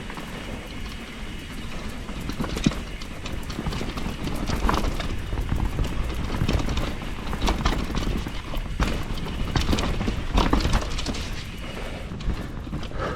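Enduro mountain bike riding down a wet, rough trail: a steady rumble of tyres over dirt and roots, with frequent sharp knocks and rattles from the bike's frame, chain and suspension over bumps.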